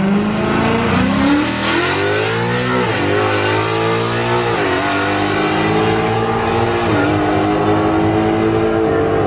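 Ford Mustang launching down a drag strip at full throttle. The engine note climbs through the gears, dropping at three upshifts about three, five and seven seconds in, then holds steady.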